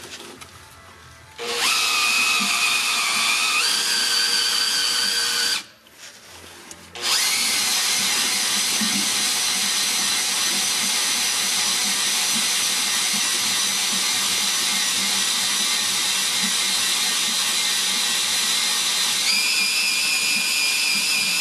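Electric drill spinning an external dry-sump oil pump through a homemade adapter to prime the oil system and build oil pressure. The drill runs steadily, stopping briefly twice in the first seven seconds, and its whine steps up in pitch near the end as it speeds up.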